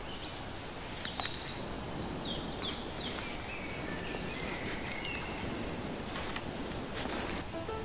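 Outdoor ambience: small birds chirping in a few short calls over a steady background hiss, with a few faint clicks near the end.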